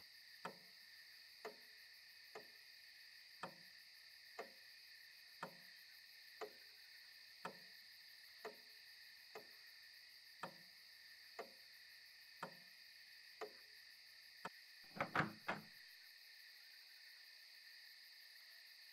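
Bedside clock ticking once a second in a quiet room, then a quick run of three or four knocks on a door about fifteen seconds in. A faint steady high-pitched hum lies underneath.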